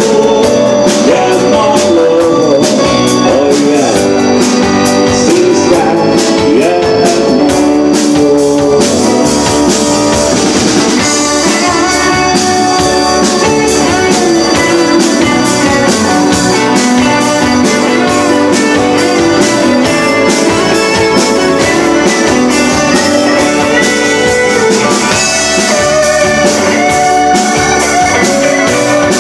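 Live rock band playing with drum kit and guitars, a singer in the first part, then an electric guitar taking the lead over the beat.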